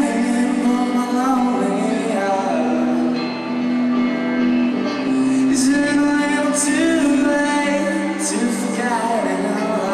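Live band music with a man singing over electric guitar.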